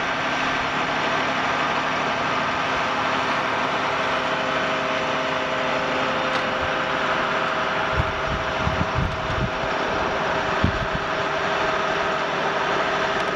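Tow truck's engine running steadily, with a few low thumps about eight to eleven seconds in.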